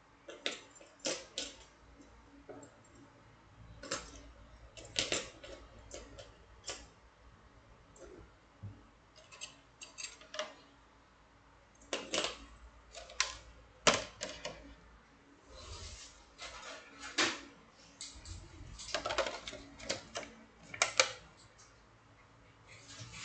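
Metal wire puzzles clinking and clicking against each other as they are handled, in irregular clusters of light clatter with short pauses between.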